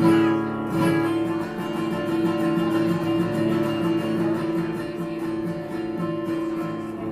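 Live bluegrass string band starting a tune: acoustic guitar strumming a steady rhythm under long held notes, opening on a loud chord.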